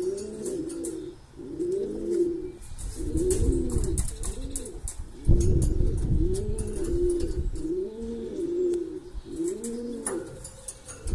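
Male Veleño pigeon cooing over and over, each coo a rising-and-falling note, about one a second. A low rumble comes in about five seconds in.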